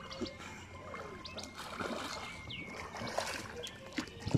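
Water sloshing and light splashing from a swimmer moving through canal water, with a sharper splash near the end.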